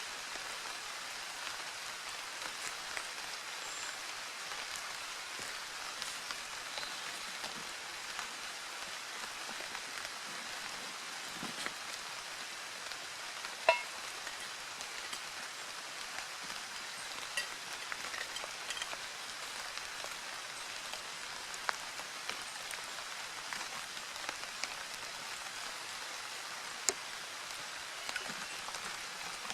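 Steady rain falling, an even hiss with scattered louder drops. About fourteen seconds in there is one sharp clink that rings briefly, and two smaller knocks later.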